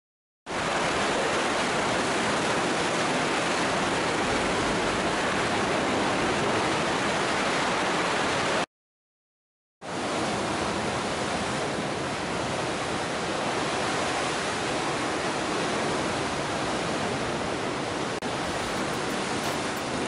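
Sea water surging and churning in sea caves, a steady loud rushing noise, cut off twice by brief gaps of silence: near the start and about nine seconds in.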